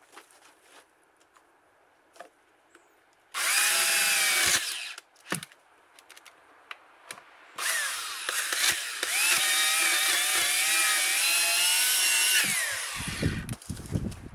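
Oregon CS1500 electric chainsaw, a 15-amp motor driving an 18-inch bar, cutting into a log. A short burst comes about three seconds in, then a longer run of about five seconds. Its whine drops in pitch as the chain bites and slides down as the motor winds off.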